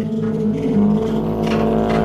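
Experimental industrial electronic music: layered held drone tones that shift pitch now and then, over a low rumble that comes in at the start.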